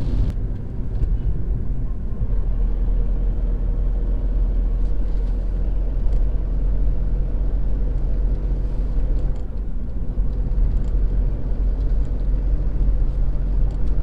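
Car driving on the road, heard from inside the cabin: a steady low rumble of engine and tyres, with a faint engine hum.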